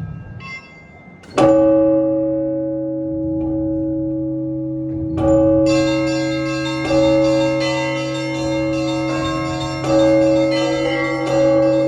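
Russian Orthodox church bells ringing. A large bell is struck about a second in and left humming, then smaller high bells join about five seconds in with quick strokes, over repeated blows of the big bell.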